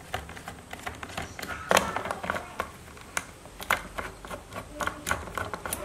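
Irregular small clicks and taps of a screwdriver's Torx bit and bit holder working T27 screws out of a Stihl string trimmer's plastic case, with a child's voice briefly in the background about two seconds in.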